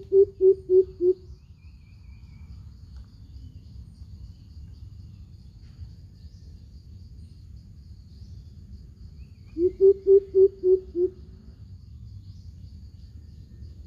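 Greater coucal calling: two runs of about six deep, evenly spaced hoots, one right at the start and another about ten seconds in. A steady faint high insect trill runs underneath.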